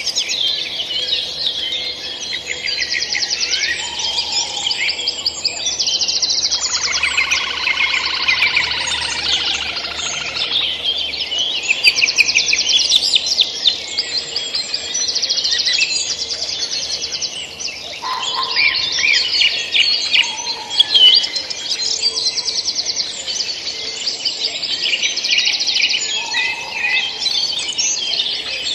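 Several songbirds singing at once: rapid chirps and trills overlapping without a break, with a lower, fuller call joining in for a few seconds near the quarter mark.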